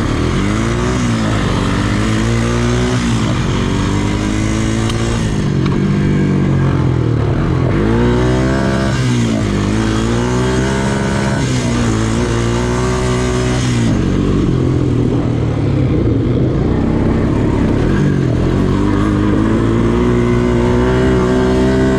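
ATV engine running hard under throttle, its pitch rising and falling again and again as the rider opens and eases the throttle.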